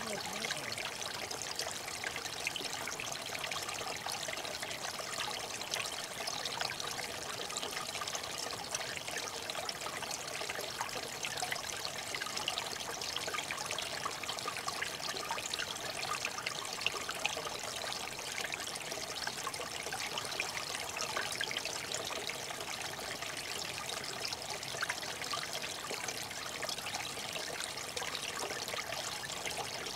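Water steadily trickling and splashing, an even rushing sound with fine flickers and no sudden events.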